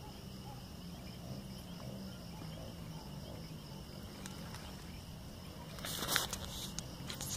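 Crickets trilling steadily at night, over a low steady hum, with two brief rustles about six seconds in and near the end.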